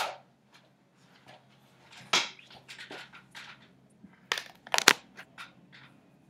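Handling noise at a desk: a scatter of short scratchy clicks and rustles, with the sharpest, loudest few clicks close together about four and a half to five seconds in.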